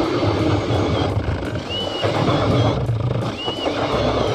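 Power ice auger boring through lake ice: its motor running steadily under load while the spiral blade grinds and churns up ice chips.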